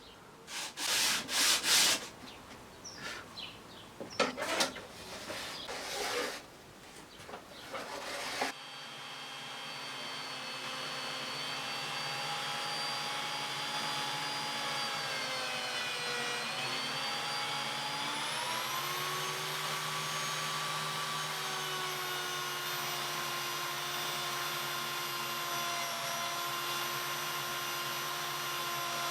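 Sandpaper rubbed in short irregular strokes against wood for about eight seconds. Then an electric power tool's motor runs steadily, its pitch sagging briefly around the middle, as under load, before recovering.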